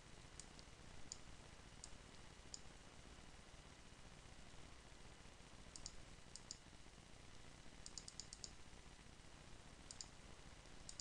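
Faint, scattered computer mouse clicks over near silence, some in quick pairs and a quick run of about five some three-quarters of the way through.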